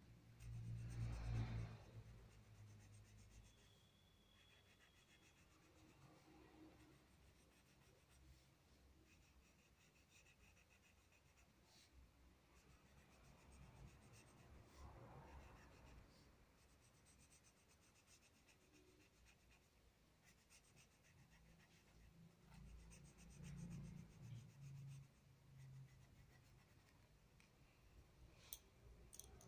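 Coloured pencil rubbing faintly across workbook paper as a shape is shaded in, with a low bump about a second in and a few light clicks near the end.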